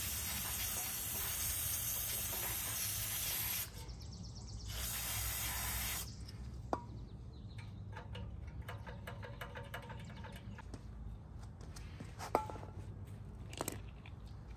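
High-pressure water spraying from a pressure washer's wand in two bursts: a long one of nearly four seconds, then a shorter one about a second later. Scattered light clicks and knocks follow.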